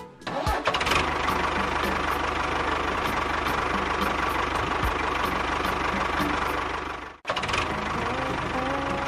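A small motor running steadily with a fast, even buzz, cut off briefly about seven seconds in and then running again.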